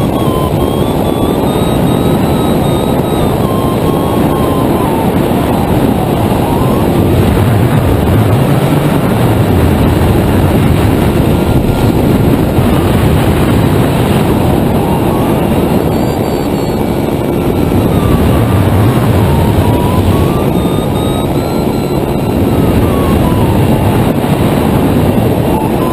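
Loud, steady wind rush over the microphone of a camera on an electric hang glider in flight, swelling a little now and then as the glider circles. A faint thin tone near 1 kHz drifts slowly up and down beneath it.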